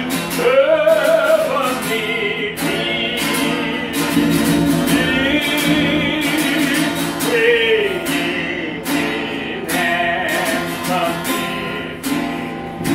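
Singing to a strummed acoustic guitar.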